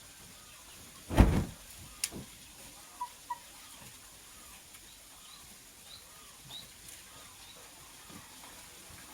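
Lovebird giving short, faint, high chirps, a pair about three seconds in and more spaced through the rest. About a second in there is a loud, brief thump or rustle, followed by a sharp click.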